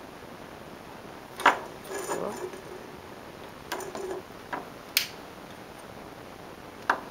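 A few sharp clicks and light clattering knocks of small hard objects being handled on a workbench, spaced irregularly a second or more apart.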